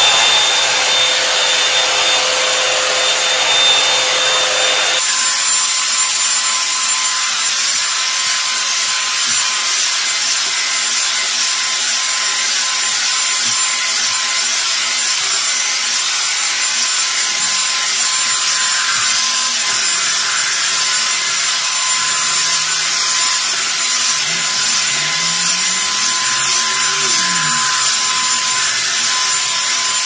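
Revlon One-Step hot-air brush hair dryer running on its high setting, a steady loud rush of air with a thin motor whine. The whine jumps to a higher pitch about five seconds in and then holds steady.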